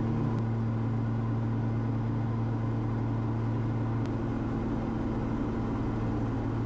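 Twin piston engines of a Cessna 340 droning steadily in the cabin during a descent, a constant low hum with no change in pitch.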